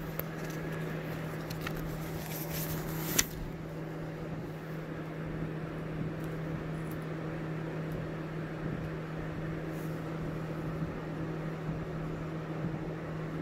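Steady low mechanical hum, with rustling and handling clicks in the first three seconds that end in a sharp knock.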